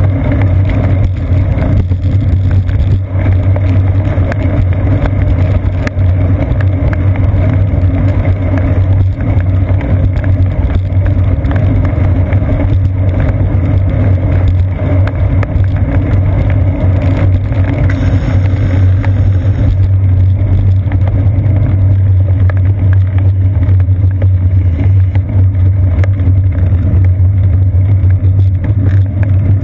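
Steady, loud rumble of a bicycle rolling along a wet paved path, picked up through a seat-post-mounted GoPro Hero 2: road vibration and tyre noise, with a steady low hum underneath.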